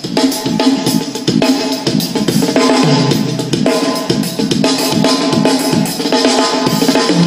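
Drum-led music with kick, snare and bass playing loud and steady through a large outdoor line-array PA sound system, the RDW system, which is starting its compulsory three-minute demo set.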